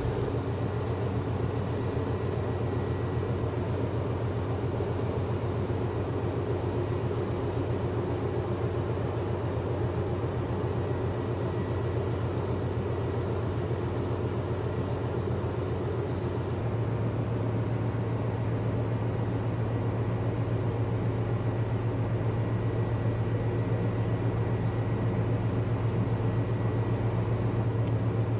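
Low, steady drone of a large container ship under way, getting a little louder just past halfway as it comes nearer.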